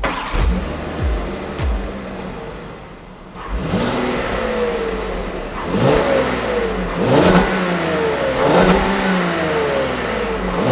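3.6-litre VR6 engine of a 2021 Volkswagen Atlas starting on the push button and flaring, settling to idle, then revved hard several times, each rev rising and falling back, up against its rev limiter, which is aggressive.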